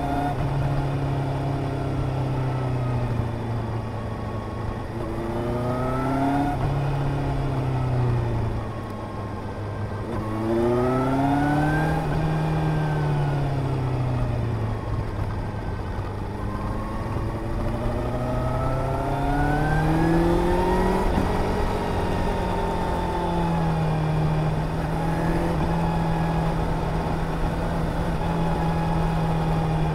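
Suzuki GSR 750's inline-four engine heard from the rider's seat, its pitch climbing and falling several times as the throttle is opened and closed through the bends, with a long climb about two-thirds through and then a steady engine speed near the end. Steady wind and road noise runs underneath.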